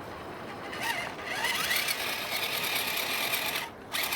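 Electric motor and gear drivetrain of a scale RC rock crawler truck whining under throttle, rising in pitch as it starts about a second in, dropping out briefly near the end and then picking up again.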